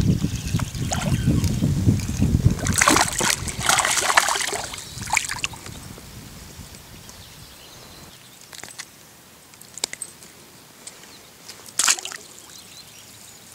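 A hooked bass splashing and thrashing at the water's surface as it is reeled in, over a low rumble of wind on the microphone during the first few seconds. Afterwards it goes quieter, with a few light clicks and taps.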